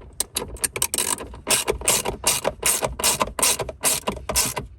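Socket ratchet clicking in quick repeated strokes as a nut is tightened down, about three clicks a second.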